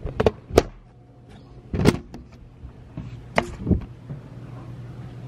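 Handling noise from the camera being picked up and moved: about five knocks and bumps over a steady low hum.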